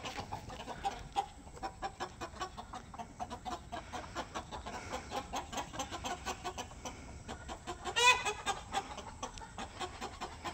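Chickens clucking continually in short, rapid notes, with one louder call about eight seconds in.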